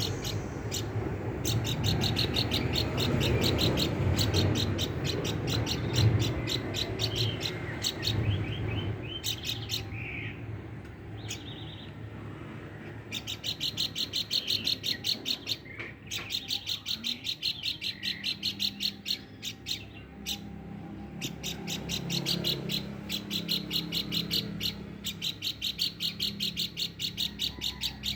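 Pelanduk bukit, a babbler, calling in long runs of quick, evenly repeated high chirps, with short pauses between runs. A low rumbling noise sits under the calls over roughly the first third.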